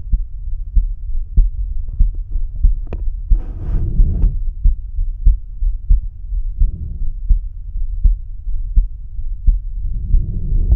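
A man's heartbeat heard through the bell of a stethoscope placed over the aortic area: regular low lub-dub thumps, a little faster than one a second, with a few stretches of soft rushing noise over them.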